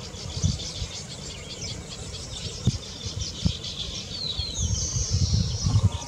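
Baya weavers chattering at their nest colony: a steady run of rapid high chirps, with a couple of short swooping notes about four seconds in, followed by a wheezy buzzing note lasting about a second.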